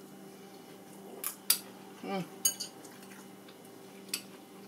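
Metal chopsticks clicking against white ceramic bowls while eating, four sharp clicks with the loudest about a second and a half in. A short vocal sound, like an "mm", comes about two seconds in.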